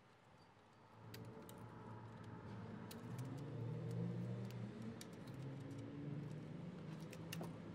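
Faint clicks and light rattles of rubber breather hoses and their clips being handled on an engine's valve cover, over a low hum that slowly rises and falls in pitch and grows a little louder after the first second.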